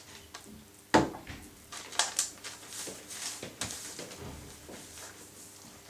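Folded kraft paper crinkling and rustling as it is handled and pressed flat on a table, with a sharp knock on the tabletop about a second in and a smaller one a second later.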